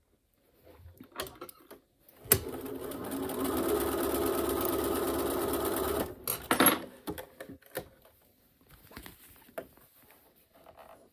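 Bernina electric sewing machine stitching in one steady run of about four seconds, starting about two seconds in, as the pleats of a cotton mask are sewn. A few sharp clicks follow the run, then quiet fabric handling.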